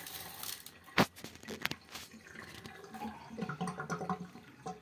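Colored aquarium gravel trickling and rattling as a hand scoops it and lets it fall back into a plastic bowl, with a sharp click about a second in.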